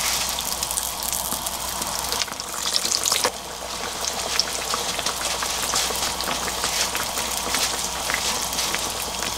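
Hot oil sizzling and crackling around pieces of yeast dough deep-frying in a small frying pan, a dense patter of tiny pops. The crackle shifts abruptly about three seconds in.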